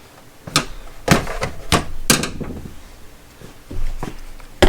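Several separate knocks and clunks of handheld power tools being picked up and set down on a hard surface, about six in all.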